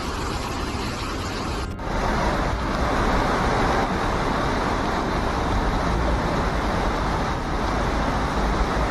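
Loud, steady rushing of floodwater, with an abrupt cut about two seconds in, after which the rush goes on slightly louder.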